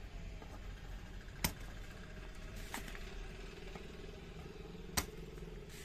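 Electric desoldering iron's spring-loaded pump plunger snapping back twice, about three and a half seconds apart, sucking molten solder off the pins of a relay, over a steady low hum.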